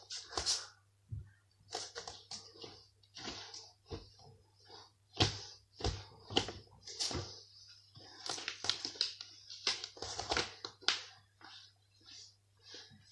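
Irregular rustling and scuffing with a few soft knocks, as of a person moving about close to a phone set near the floor, over a steady low electrical hum.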